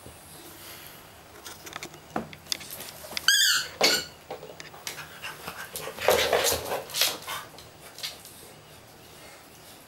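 English bulldog at play with its toys, making short dog sounds, with a brief high squeak that rises and falls about three seconds in. A louder, noisy stretch follows around six to seven seconds in.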